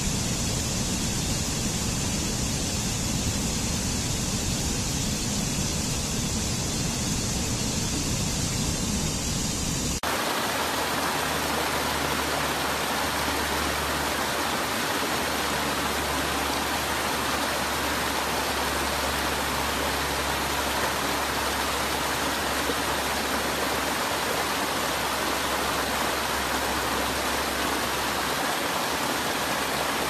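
Rushing water of a stream cascading over rocks, a steady noise. About ten seconds in it switches abruptly to a different rush of water.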